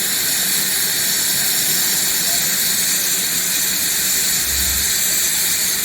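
Steam hissing steadily from a standing steam locomotive, a loud, even hiss with no break.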